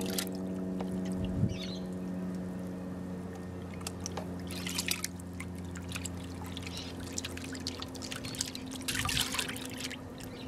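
Muddy water sloshing and pouring as a plastic gold pan is dipped, swirled and tipped in a tub of water, washing gravel out of the pan. Louder splashes come about four and a half seconds in and again near the end, over a steady low hum.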